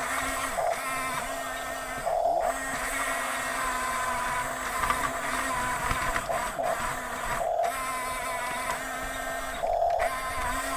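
Small electric motors and plastic gearboxes of radio-controlled toy construction machines whirring, with the whine cutting out and restarting briefly several times as the controls are worked.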